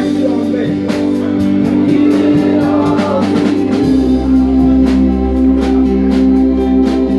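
Live gospel worship music: a band with held keyboard chords, bass, guitar and a steady drum beat, with singing over it.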